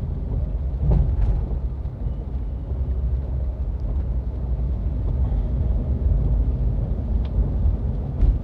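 Steady low rumble of a car's engine and tyres on a wet road, heard from inside the cabin, with a few faint clicks.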